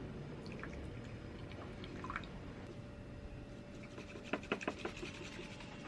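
Water poured into a matcha bowl, faint and trickling, with a quick cluster of light ceramic taps about four seconds in.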